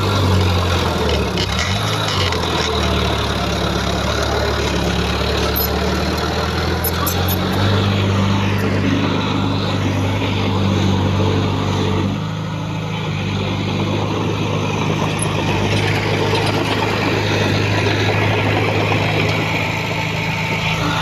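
Diesel engines of heavy earthmoving machinery running steadily, the engine note shifting in pitch a few times.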